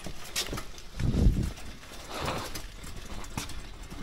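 Metal hand truck rolling over concrete paving stones, its wheels and frame clattering in irregular knocks, with one heavier thud about a second in.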